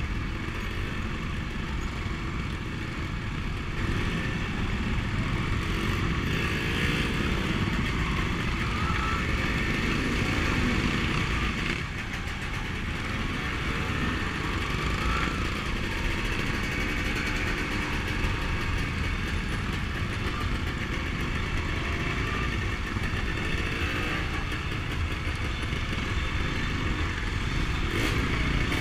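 Dirt bike engine running at low riding speed, heard from the rider's own bike, with the engines of a group of trail motorcycles riding close around it. The sound is steady throughout, with a slight dip about twelve seconds in.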